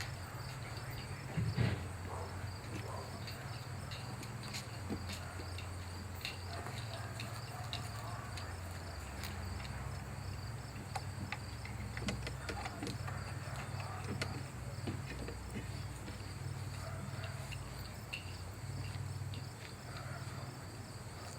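A steady low hum with faint, evenly repeating insect chirping high above it. Scattered light clicks and knocks sound through it, the loudest about a second and a half in.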